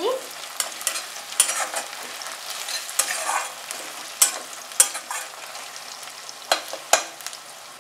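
Sliced onions, fried well and browned, sizzling in oil in a metal kadai while a metal spatula stirs them. The spatula scrapes the pan and knocks against it with sharp clicks every second or so.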